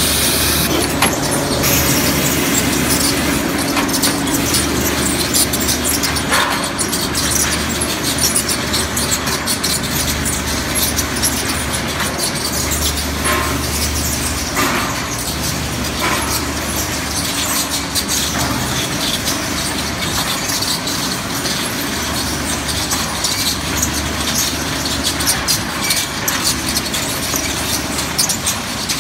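Concrete roof tile making machine running: a steady clatter of metal with many small knocks and clicks, over a deep hum that swells and drops every few seconds.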